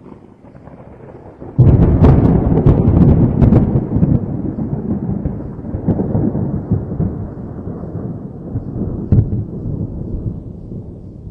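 Thunder: a sudden loud clap about a second and a half in, crackling for a couple of seconds, then a long rolling rumble that slowly dies away, with one more sharp crack near the end.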